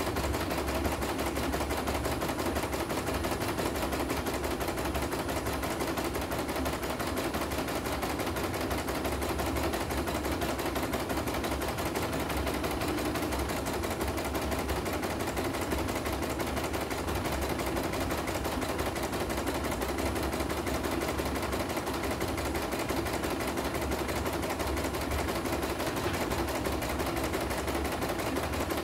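CNY E900 computerised embroidery machine stitching a design: a fast, steady clatter of needle strokes with the hook and the hoop drive. It is running normally in a test stitch-out after repair of a machine that was dead and whose needle would not rise.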